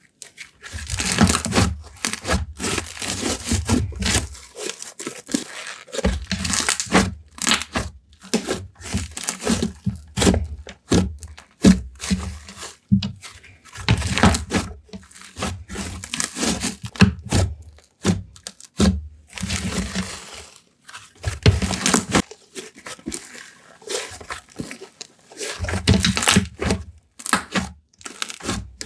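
Slime being kneaded, stretched and pressed by hand, giving irregular crackling, tearing and squishing sounds in quick bursts with short pauses between them.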